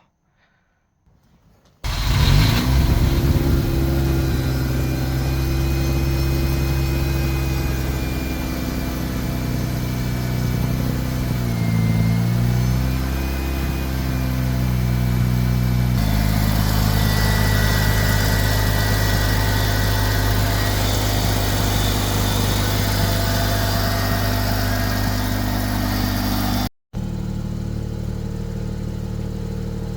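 Mazda RX-8's twin-rotor Renesis rotary engine, breathing through a newly fitted cold air intake with a K&N filter, starts about two seconds in and settles into a steady idle. Its pitch dips and recovers briefly midway. The sound cuts out for a moment near the end and carries on at a slightly lower level.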